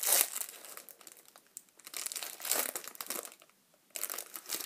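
Foil wrapper of a Match Attax trading-card pack being torn open and crinkled by hand, in a few short bursts of crinkling with a brief quiet pause about three seconds in.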